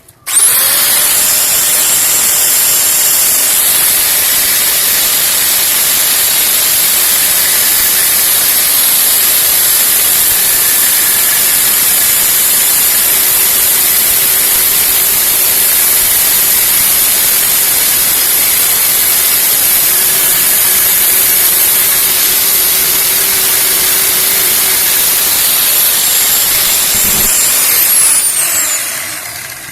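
Power tool with an abrasive cut-off disc cutting through steel: it spins up just after the start, runs steadily and loudly with a high hiss for nearly half a minute, then winds down with a falling whine near the end.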